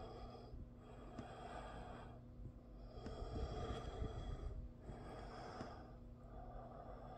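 A person breathing through the nose close to the microphone: slow, regular in-and-out breaths, loudest about three to four seconds in.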